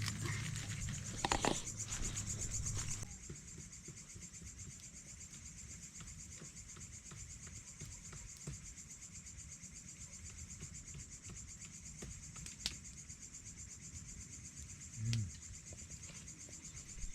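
Night insects, crickets among them, trilling in a steady high-pitched chorus. A low hum stops about three seconds in, and a few faint clicks follow.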